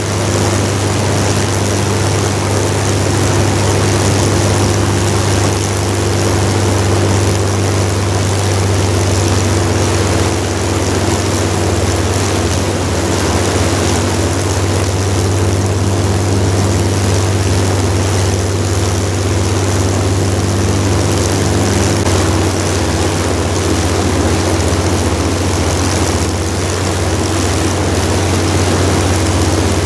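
Avro Lancaster bomber's Rolls-Royce Merlin V12 piston engines running on the ground with propellers turning, a loud, steady drone. The pitch shifts slightly about two-thirds of the way through.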